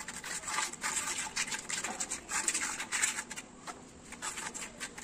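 Hand trowel scraping and spreading cement mortar across the face of a granite slab, in a run of short, irregular strokes.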